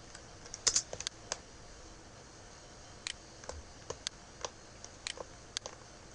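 Computer mouse clicking: about a dozen short, scattered clicks, a quick cluster about a second in and more spread through the middle, over a faint steady hiss.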